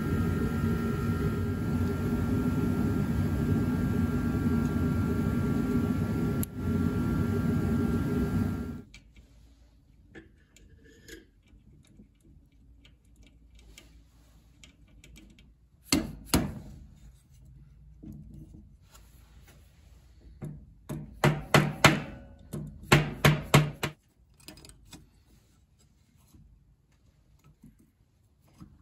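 A loud, steady machine-like noise with a hum in it for about the first nine seconds, which cuts off suddenly. Then cast carburetor bodies are handled on a sheet-metal plate: one sharp knock, and a few seconds later a quick run of about eight ringing metal knocks.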